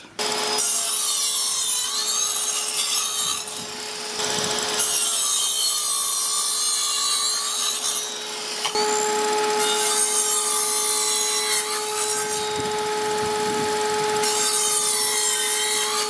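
Evolution mitre saw cutting through a wooden board, stroke after stroke, over the steady hum of a Parkside PNTS 1400 W wet/dry vacuum connected to the saw's dust port as extraction.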